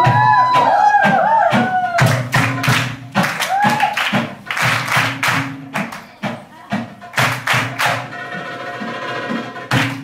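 Live Arabic dance music from a small band: dense, fast strikes on riq frame drum and hand drum over keyboard. There is a sliding, wavering melodic line in the first two seconds, and the keyboard holds a sustained chord from about eight seconds in.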